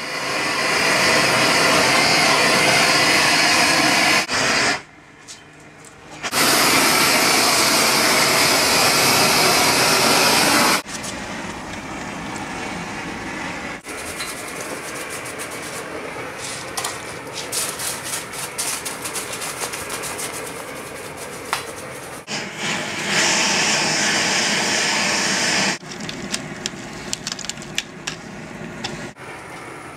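Gas torch hissing in several loud, steady stretches while a bronze sculpture is heated for patination. Between them come quieter spells of crackling and clicking.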